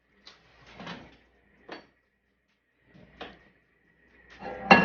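Kitchen handling sounds: a few light knocks, then near the end a loud metallic clank of cookware that rings on briefly.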